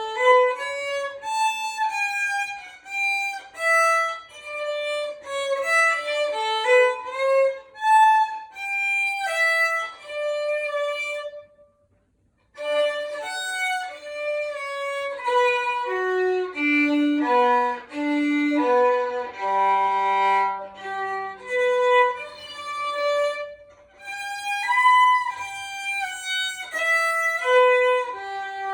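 A student playing a solo instrumental recital piece: a melody of separate pitched notes, with a short break about twelve seconds in before the playing resumes.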